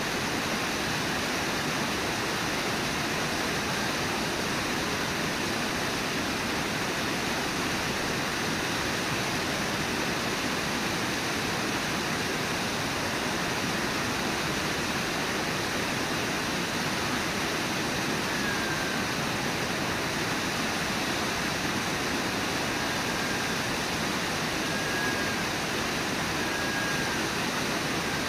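Brooks Falls, a river waterfall, pouring and rushing in a steady, unbroken roar of white water. A few faint short high notes come through in the second half.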